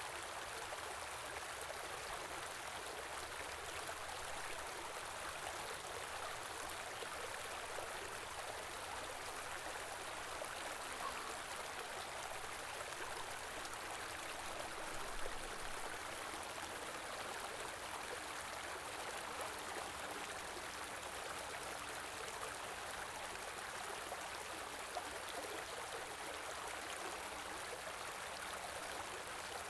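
Steady rushing and babbling of a small stream flowing over stones.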